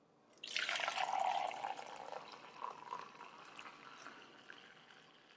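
Hot coffee poured from a glass pour-over carafe into a ceramic mug, a liquid stream filling the mug. It starts about half a second in, is loudest for the first couple of seconds, then trails off as the pour tapers.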